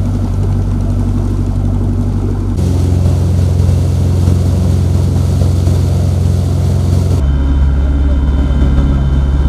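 Fishing boat's engine running steadily at cruising speed, a low hum. About three seconds in, water rushing in the wake is added, and the engine tone changes abruptly twice.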